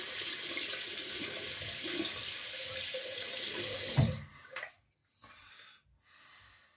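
Tap water running steadily into a bathroom sink, shut off with a knock about four seconds in. Then a few faint short scraping strokes of a double-edge safety razor across lathered stubble.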